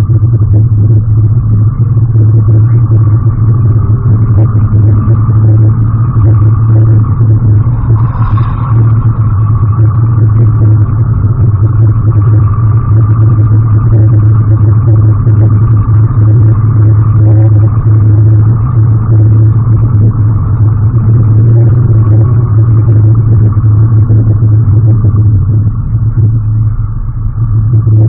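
Loud, steady low drone of a 2013 Scion FR-S at speed on track, its engine, road and wind noise heard from inside the cabin through an action camera's distorted audio.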